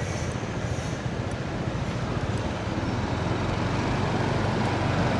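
Steady engine and road noise of a moving vehicle, a low rumble that grows slightly louder toward the end.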